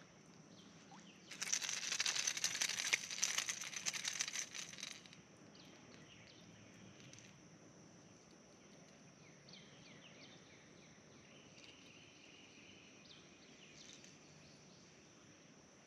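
A loud, dense crackling burst lasting about four seconds, starting a second in. After it, faint outdoor ambience with a steady high hum and a few short bird chirps.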